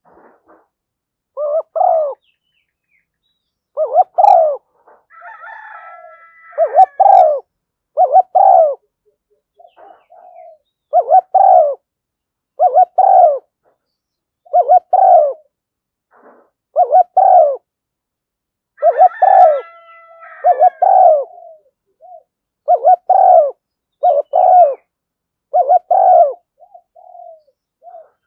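Spotted dove cooing: a long run of short, low coo notes in small groups, the calls used to lure wild doves. A higher-pitched call joins twice, about a fifth of the way in and again about two-thirds through.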